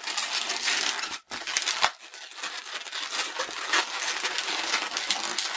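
Inflated latex modelling balloon rubbing and creaking under the fingers as its tail end is wound around pinch twists, with a sharp click just under two seconds in.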